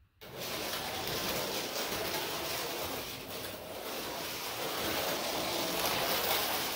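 Carrera racing truck slot car lapping the plastic track at full throttle: a steady whirring rumble of its small electric motor and wheels running in the slot. It starts suddenly just after the beginning.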